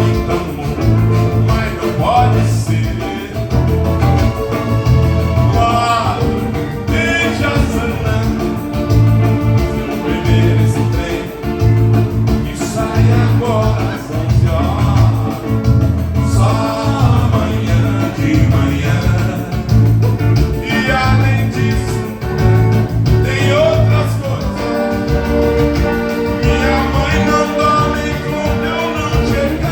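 Dance band playing Brazilian popular music: a singer over guitar with a steady, pulsing bass beat.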